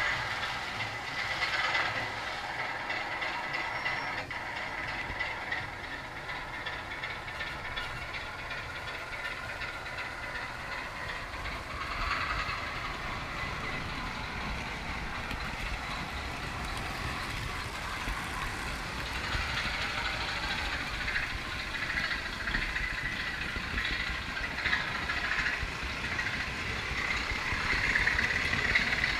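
Model train running round its track, heard from an open wagon in the train: the steady running noise of the wheels on the rails and the locomotive's electric motor.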